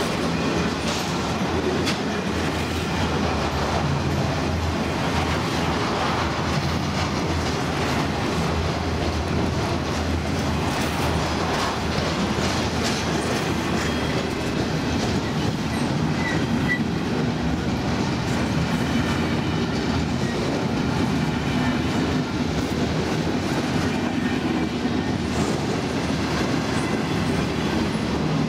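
A CSX intermodal freight train's double-stack container cars and trailer cars rolling past close by at steady speed: a continuous rumble of steel wheels on the rails with repeated clicks and knocks.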